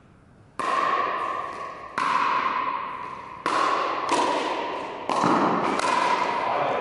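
Pickleball rally: about six sharp pops of paddles striking a plastic pickleball and the ball bouncing on the court, the first about half a second in, each ringing on with a long echo in a large hall.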